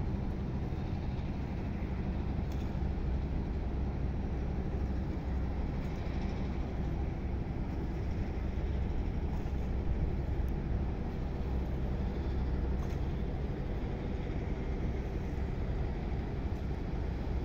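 Steady low rumble of a large container ship passing close by.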